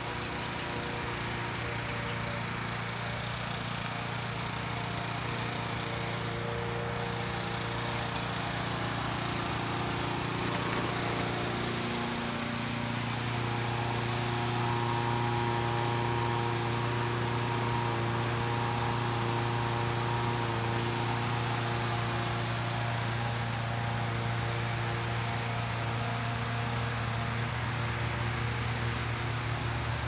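A steady mechanical drone from a running machine: a low hum with several held tones over a broad rushing haze. The pitch pattern shifts and the sound grows slightly louder about twelve seconds in.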